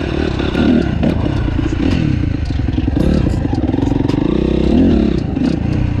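Four-stroke dirt bike engine running under way, its pitch rising and falling with the throttle, with a rising rev about five seconds in. Stones and gravel clatter under the tyres.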